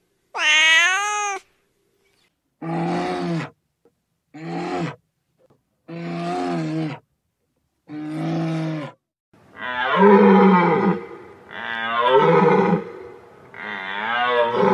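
A series of eight separate animal calls, each about a second long with a pitch that wavers and bends, divided by silent gaps; the last three, near the end, are the loudest and longest.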